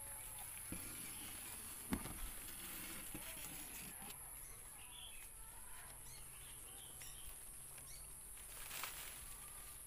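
Faint rural outdoor ambience: scattered bird chirps over a steady high-pitched hiss, with one sharp knock about two seconds in.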